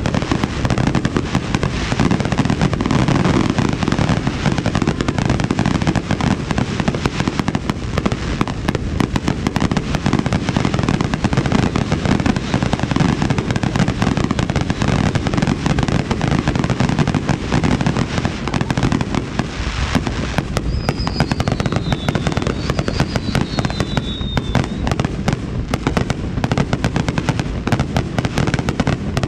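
Aerial fireworks display going off in a dense, continuous barrage of booms and crackling bursts. The low booming is heaviest for the first two-thirds, then it thins toward mostly crackling.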